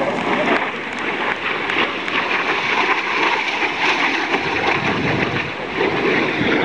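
Steady rushing jet noise from a low pass of an Aermacchi MB-339 jet trainer's single Viper turbojet.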